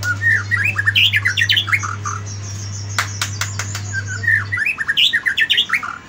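White-rumped shama (murai batu) singing: two rapid phrases of quick whistled notes, one at the start and one near the end, with a run of sharp clicks between them. A steady low hum sits underneath and stops about three-quarters of the way through.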